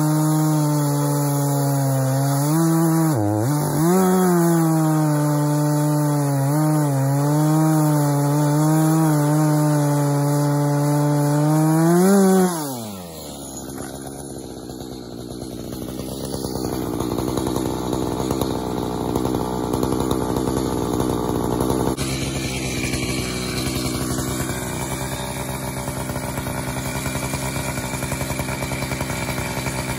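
Echo CS-590 two-stroke chainsaw at full throttle cutting through a log. The engine pitch sags briefly about three seconds in. It climbs as the chain breaks through about twelve seconds in, then the engine drops back to a quieter, steady idle.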